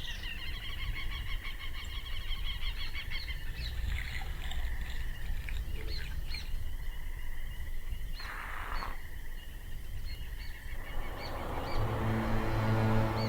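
Birds chirping and singing over a low outdoor rumble. A short rushing whoosh comes about eight seconds in, and a swelling sound with sustained musical tones builds near the end.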